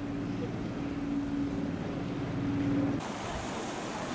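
A boat engine runs steadily with a humming drone. About three seconds in it cuts off abruptly to a hiss of wind and waves.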